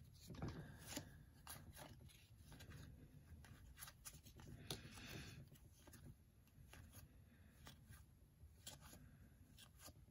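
Faint handling of a stack of Topps baseball cards: soft swishes and light clicks as cards are slid off the pile one after another.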